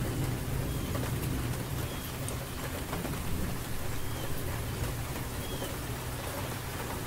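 Steady rain falling, an even hiss over a low rumble.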